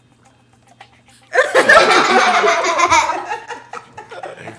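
Several people laughing together. The laughter breaks out loudly about a second in and fades over the next two seconds.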